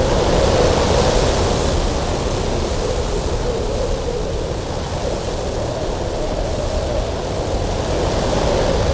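Strong cold winter wind blowing steadily over a mountain pass, with a low whistling note running through the rush. It swells a little near the start and again near the end.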